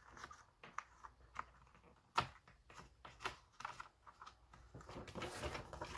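Light clicks and paper rustling from pages being pressed onto a disc-bound planner's plastic discs, with one sharper click about two seconds in and more rustling near the end.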